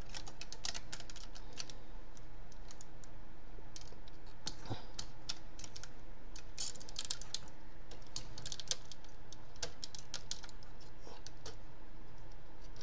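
Irregular clusters of small sharp clicks and snaps from the joints and panels of an MP-10 Optimus Prime transforming robot figure being handled and folded, over a steady low hum.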